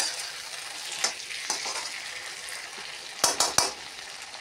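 Potato and bean sabzi sizzling in an iron kadhai while a perforated steel spatula stirs it, with a little water just added to keep it from sticking. The spatula gives a few sharp clinks against the pan, with a quick run of three a little past three seconds in.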